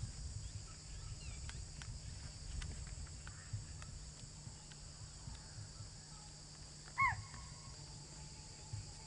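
Wild outdoor ambience with a steady high insect drone, and about seven seconds in one short, loud animal call that falls in pitch.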